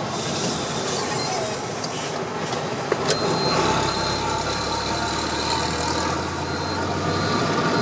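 A truck's MWM X12 diesel engine running under way, heard through an exhaust with its long tailpipe tip removed, which gives a louder, more open note. A few sharp clicks come about three seconds in, and a low steady hum grows stronger just after.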